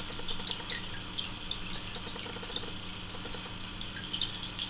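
Water trickling and dripping over a steady low hum, from a running aquarium, with faint small ticks in the trickle.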